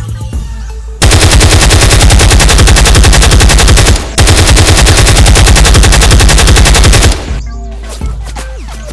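Rapid automatic gunfire in two long bursts of about three seconds each, with a brief break about four seconds in.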